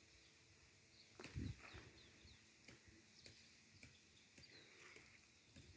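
Near silence outdoors, with faint short chirps of distant birds scattered throughout and a soft low bump about a second and a half in.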